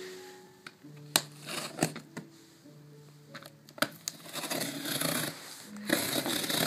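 Box cutter slitting the packing tape on a cardboard box: several sharp clicks, then longer scraping rasps of the blade through the tape, over background music.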